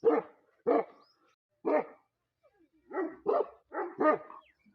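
Bully Kutta (Pakistani mastiff) barking: three single barks about a second apart, then a quicker run of four.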